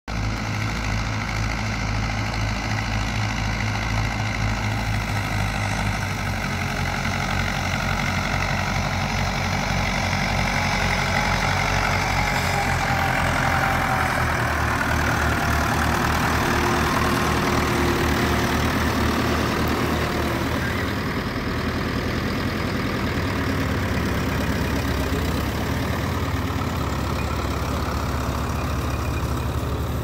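Doe 130 double tractor's twin Ford 5000 diesel engines running steadily, with the engine note shifting about six seconds in and again around twenty seconds.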